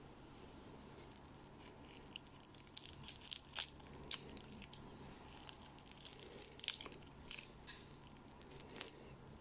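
Fingers breaking the legs and wings off a dried grasshopper: faint, dry crackling and snapping in a string of small clicks.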